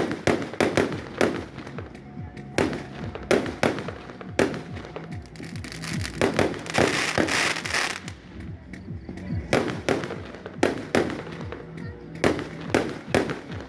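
Fireworks going off: a rapid, irregular string of bangs, with a longer hissing crackle about seven seconds in.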